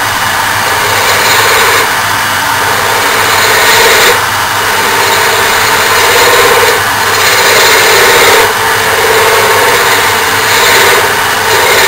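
JET wood lathe spinning a small wooden ferro rod handle blank while a hand-held turning tool cuts it. The cutting sound swells and eases in passes every second or two over a steady loud rushing noise.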